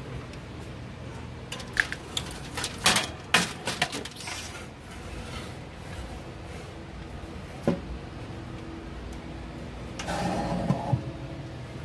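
Metal baking tray and wire rack clinking and clattering as they are handled and slid into a countertop toaster oven: a cluster of sharp knocks and clicks from about two to four seconds in, one knock near eight seconds, and a scraping clatter near the end, over a steady low hum.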